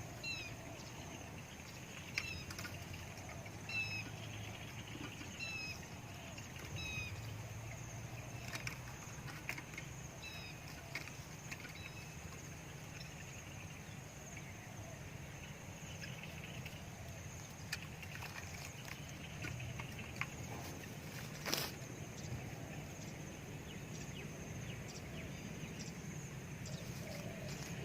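Outdoor birdsong ambience. A small bird repeats a short, high, down-hooked chirp about every one and a half seconds for the first several seconds over a steady high insect whine. Faint low spotted dove coos come now and then, and there is one sharp click a little over twenty seconds in.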